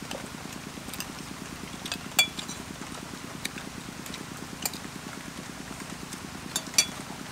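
Metal spoons and forks clinking against plates while eating, with sharp clinks about two seconds in and another near the end. A steady low background noise runs underneath.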